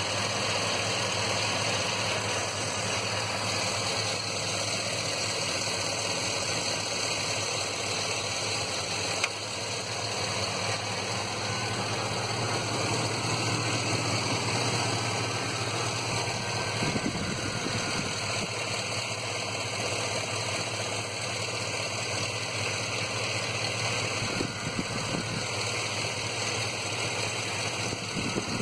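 Car engine idling roughly, with a steady low hum and a few irregular stumbles. A P0300 code has been logged, so this is the sound of a random or multiple-cylinder misfire.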